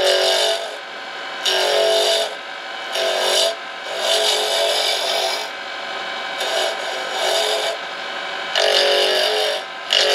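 A gouge roughing down a pen blank spinning on a wood lathe, in repeated cutting passes. Each pass is a harsh scraping hiss with a ringing note, half a second to a second and a half long. Between the passes the lathe runs on quietly.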